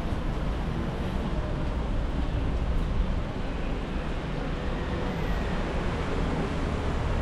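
Steady city street noise, mostly passing road traffic with a low rumble.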